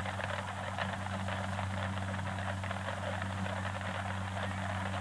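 Steady hiss and crackle over a low, constant hum: the background noise of an old film soundtrack.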